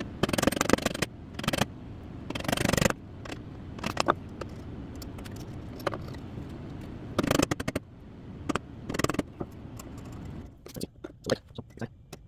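Hand-tool woodworking on a small piece of scrap wood: a series of short scrapes and knocks, with a run of quick clicks near the end.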